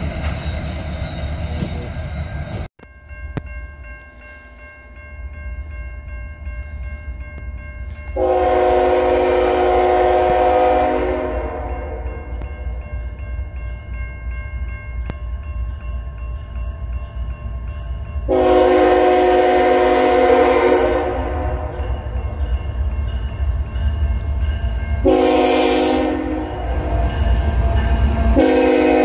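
Diesel locomotive horn sounding the grade-crossing signal, two long blasts, one short, then a long one, over the steady ringing of a railroad crossing bell and a low rumble of the approaching train. Near the start, an earlier stretch of train noise cuts off abruptly.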